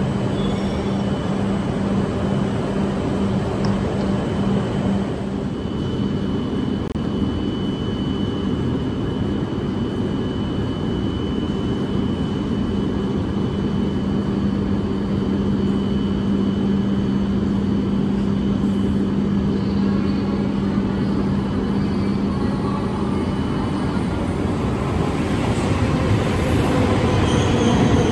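Shinkansen bullet train at a station platform: steady rumble with a steady low hum that cuts out a few seconds before the end, the noise growing louder toward the end.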